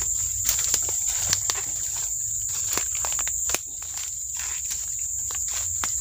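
Footsteps crunching through dry leaf litter and twigs in forest undergrowth, with scattered sharp snaps, over a steady high-pitched insect drone.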